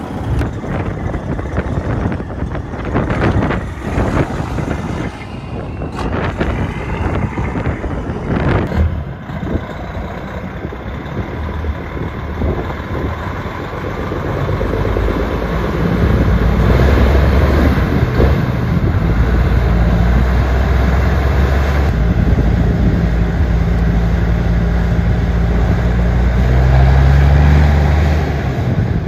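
Diesel semi truck engine pulling under load, growing louder from about halfway through as the rig comes on, with a steady deep note. The first several seconds hold scattered knocks and handling noise.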